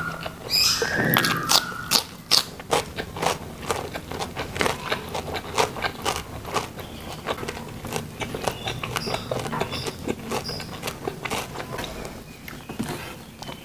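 Close-up chewing of raw cucumber and vegetables, crisp crunches and wet mouth clicks coming rapidly and unevenly. A brief high whine sounds about a second in.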